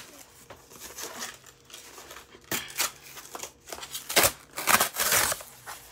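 Cardboard being torn apart by hand: a few sharp rips with rustling between them, the longest about five seconds in.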